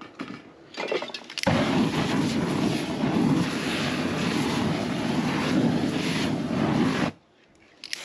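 A jet of ignited aerosol spray blown across a canvas as a flame, making a loud, steady rushing noise. Two short spurts come about a second in, then one long burst of some five and a half seconds that cuts off sharply.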